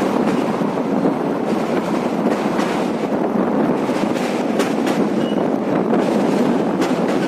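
Train running on the rails, a steady rumble with a few sharp clicks of the wheels over rail joints.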